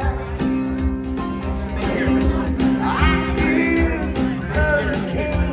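Music with a singing voice and guitar and a steady beat.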